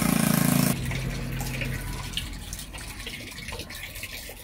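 A loud engine running cuts off abruptly under a second in. Faint splashing and brushing follow as a wet dog is washed and scrubbed with a brush.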